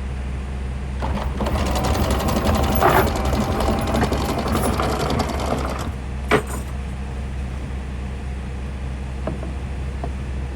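Anchor windlass hauling in the anchor chain, a fast rattle from about one to six seconds in, over a steady low hum. A single sharp clack comes shortly after the rattle stops.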